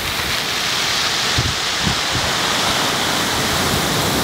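Surf washing over a beach of fine pebbles, the wet pebbles giving a steady rushing hiss.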